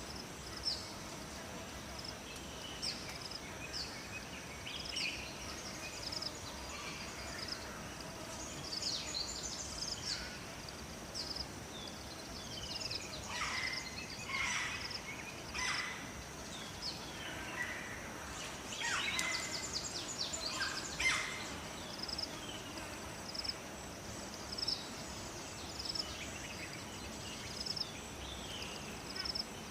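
Wild birds calling in a forest: short chirps repeating about once a second over a steady high insect-like buzz, with a cluster of louder calls made of quick falling notes in the middle. A faint even hiss runs underneath.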